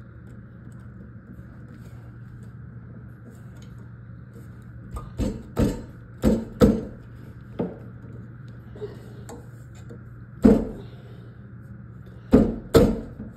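About eight short, sharp knocks and clacks in small groups, from parts being handled and fitted together during assembly. A steady hum runs underneath.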